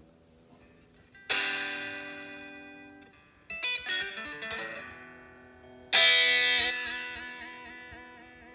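Electric guitar played through a small Vox headphone amplifier: three strummed chords, about a second in, a couple of seconds later and near six seconds, each left to ring and die away. The last chord is the loudest and wavers slightly in pitch as it rings.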